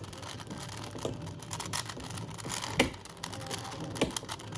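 Plastic Rubik's cube being scrambled by hand: a steady light clicking and clattering of the layers turning, with a few sharper clicks.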